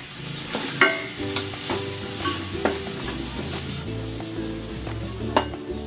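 Corn kernels, shredded chicken, garlic and onion sizzling in oil in a stainless steel pot. A wooden spatula stirs and scrapes against the pot, with a few sharp clicks.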